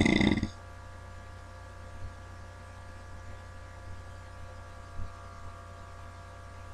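The tail of a loud snore ends about half a second in, followed by a steady electrical hum between breaths, with faint soft thumps about two and five seconds in.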